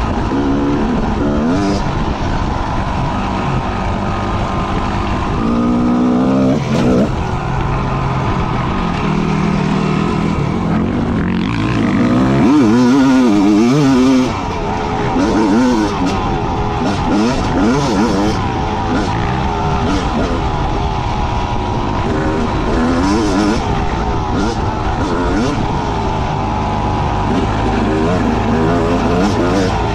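Motorcycle engine running under way, its revs rising and falling several times about halfway through, with a steady rush of wind and road noise.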